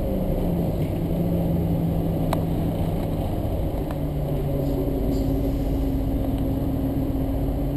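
City bus engine and drivetrain running at low speed, heard from inside the passenger cabin: a steady hum whose pitch drops slightly just after the start and then settles at a new, higher level about five seconds in. A faint click about two seconds in.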